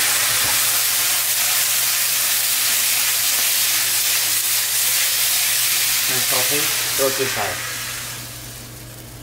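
Sliced mushrooms and green onions sizzling in a hot wok as they are stir-fried, a steady hiss. The hiss dies away near the end as the wok comes off the burner.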